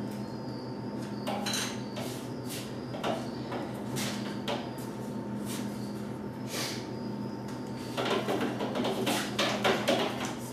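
Scattered clicks and knocks over a steady low hum, growing busier and louder about eight seconds in.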